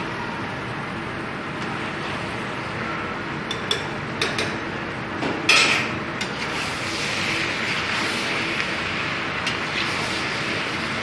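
A metal spoon or spatula stirring in a cooking pan, knocking and scraping against it in a few sharp clinks, the loudest about halfway through, over a steady hiss.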